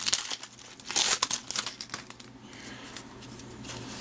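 Crinkling and rustling of baseball cards being handled and flipped through by hand, dense with small clicks for the first second and a half, then fainter.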